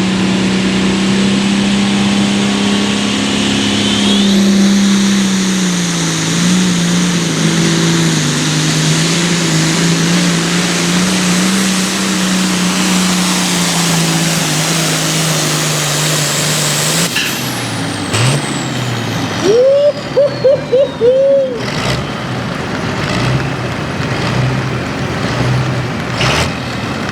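Hot farm pulling tractor's engine running hard and steady at full power down the track, its pitch dipping slightly about six seconds in. About seventeen seconds in the engine note cuts off at the end of the pull, leaving a high whistle that falls in pitch as it winds down, then a few short rising chirps.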